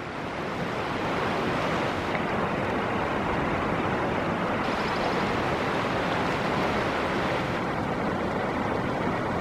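River water rushing steadily under a footbridge, growing louder over the first second and then holding level.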